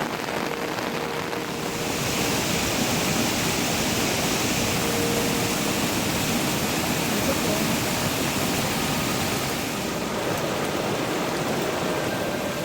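Heavy monsoon rain falling: a steady rushing hiss that grows louder about two seconds in and eases slightly near the end.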